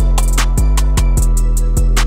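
Instrumental background music with a steady drum beat and bass.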